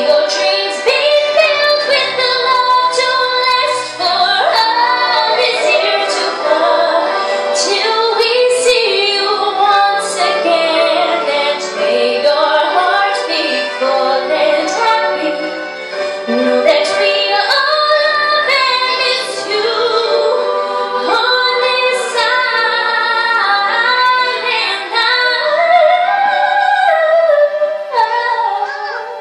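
A girl singing solo through a handheld microphone over instrumental accompaniment, holding long notes with vibrato; the singing drops away near the end.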